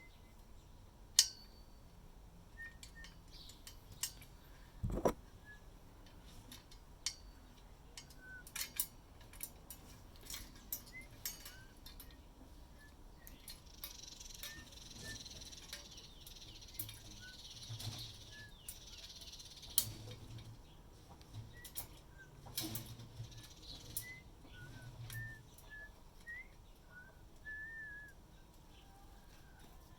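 Short, scattered whistled notes and little glides, mixed with sharp clicks and knocks of hands handling parts. The loudest clicks come about a second in and just after five seconds. A stretch of hissing rustle runs from about 13 to 20 seconds, followed by a few soft low thuds.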